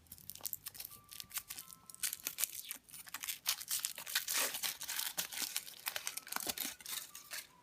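Foil wrapper of a Kinder Surprise chocolate egg crinkling and tearing as it is peeled off by hand, a rapid, irregular run of crackles.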